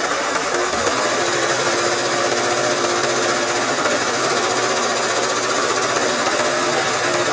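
Sewing machine running fast and steadily, its needle stitching continuously in freehand machine embroidery.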